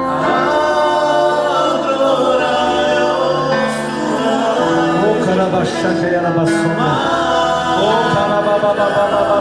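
Christian worship song: voices singing over steady held instrumental tones, led by a man singing into a microphone.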